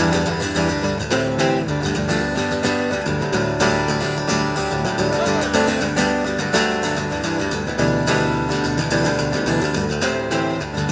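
Acoustic guitar strummed in a steady rhythm: an instrumental break between the sung lines of a folk song.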